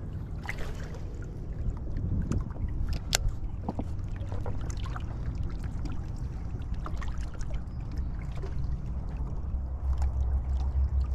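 River water lapping at the bank, with a steady low rumble underneath and scattered light clicks throughout.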